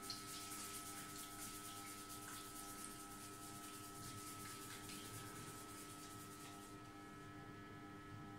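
Fingers massaging the scalp through curly hair: a soft, scratchy rubbing that stops near the end, over a faint steady electrical hum.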